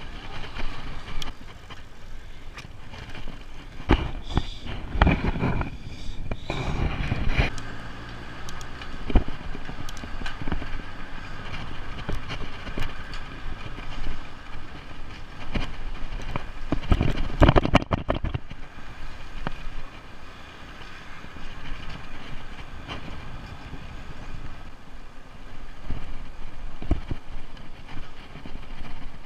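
A bicycle riding on paved road: tyre and chain noise under wind rushing over the microphone. Louder gusts and rattles come about four to seven seconds in and again near seventeen seconds.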